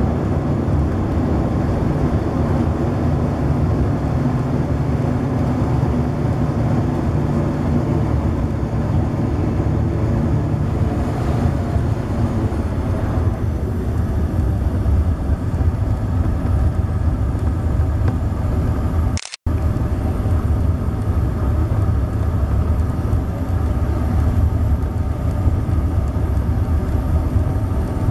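Let 410 turboprop engine and propeller running steadily as the aircraft taxis on a dirt airstrip, heard from inside the cabin: a loud, even drone with a strong low rumble and a steady whine above it. About two-thirds through, the sound drops out for a split second.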